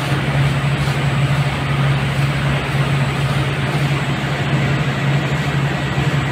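River cruise boat's engine running with a steady low drone, under an even rushing noise.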